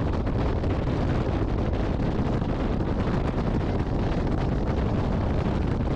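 Steady rushing wind and road noise of a car moving at highway speed, with wind buffeting the microphone.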